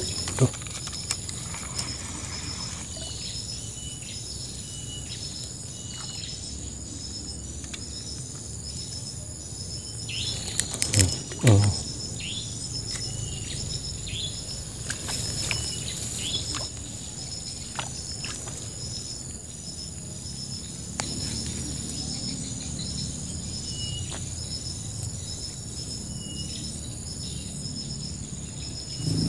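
A steady outdoor insect chorus with a high, rhythmically pulsing trill, joined by several short bird chirps in the middle stretch. There is one short, louder noise about eleven seconds in.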